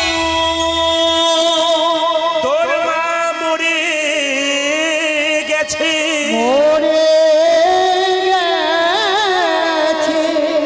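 A male kirtan singer singing a Bengali devotional line in long held notes that slide and waver in ornaments, over steady held accompanying tones.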